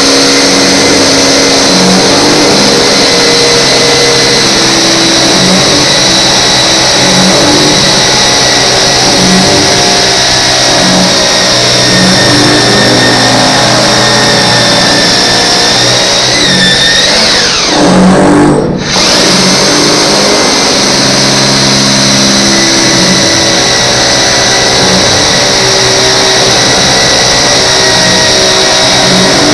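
Electric drill running steadily as it bores into a wall, with a high motor whine. About two-thirds of the way through, the motor winds down and briefly stops, then starts again.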